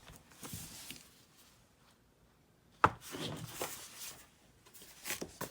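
Light handling noises of small objects on a work surface, with one sharp click a little under three seconds in.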